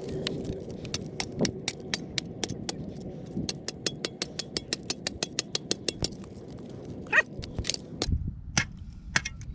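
Rapid sharp taps of a hand tool striking oyster shells to chip and pry them off the rock, several strikes a second, with one louder knock about seven seconds in.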